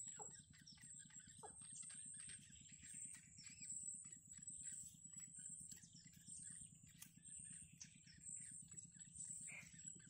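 Faint, rapid high chirping of yellow bittern nestlings begging as the parent feeds them. A steady thin high tone and a faint low pulsing hum run underneath.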